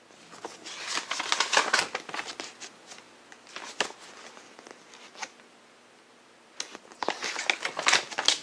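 Pages of a glossy paper booklet being turned by hand, the paper rustling and flapping in two bouts: one about a second in and another near the end, with a few soft ticks between.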